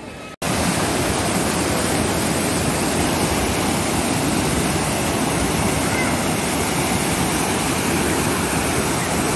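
Spring water pouring over a low stone wall and splashing onto a bather seated beneath it: a steady, loud rush of falling water that cuts in suddenly about half a second in.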